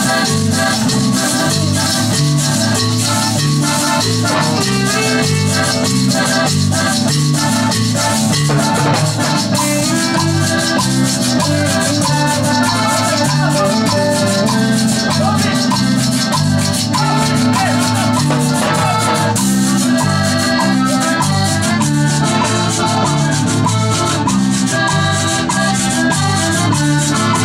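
A live cumbia band playing an instrumental passage: accordion melody over a steady repeating bass beat, with a scraped metal guacharaca keeping a constant shaking rhythm.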